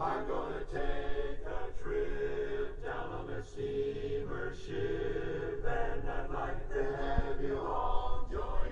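Men's barbershop chorus singing a cappella in close harmony, with chords held and changing about every second.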